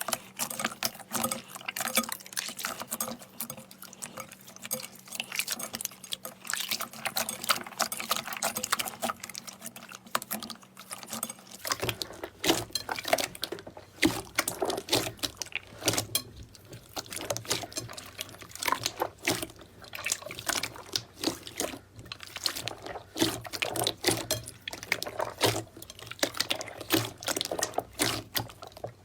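Slime being squished and pressed by hand: a dense run of wet clicks, crackles and pops. Around 12 seconds in the sound changes, with a different low background hum.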